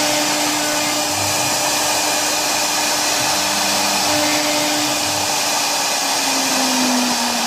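2040 CNC router's spindle running at high speed, its bit engraving grooves into a fiberboard sheet: a steady high whine and cutting hiss. Beneath it, a lower tone starts, stops and glides in pitch as the head moves.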